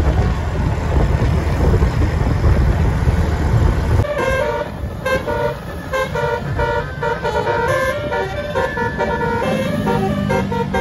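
A loud low vehicle rumble, then about four seconds in a bus's telolet horn, a multi-tone musical air horn, starts playing a quick tune of short notes that step up and down in pitch.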